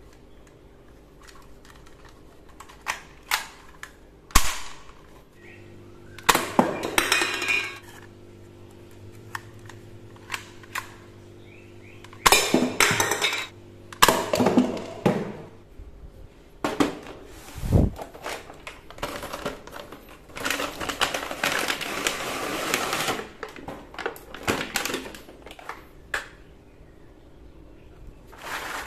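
Sharp plastic clicks and snaps of a toy dart pistol being handled, cocked and fired, with the clatter of paper cups and empty cans knocked over and rattling on a tiled floor. Near the end, more plastic clicks as a toy sniper rifle is handled.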